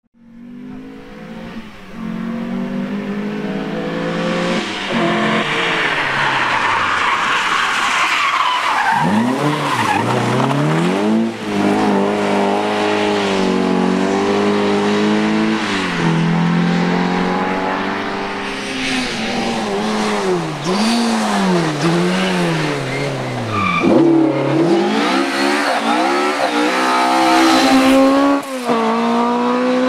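Rally car engines revving hard, the pitch climbing and dropping sharply again and again as the drivers change gear, one car after another. The sound fades in from silence at the start.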